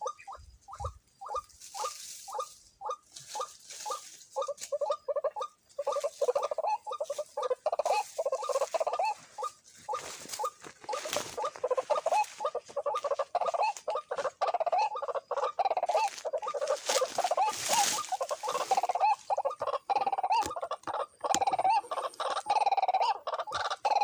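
White-breasted waterhen calling: a series of harsh repeated notes, about three a second at first, building about six seconds in into a loud, dense chatter that keeps on.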